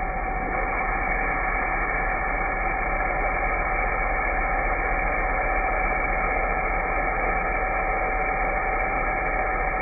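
Electric plug-in pressure washer's pump motor and water spray rinsing car mats, slowed down to a deep, muffled, steady rush with a low hum and a few held tones.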